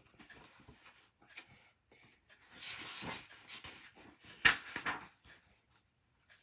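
Rustling and rubbing of a hardcover picture book being handled right at the microphone, with scattered clicks and a sharp knock about four and a half seconds in.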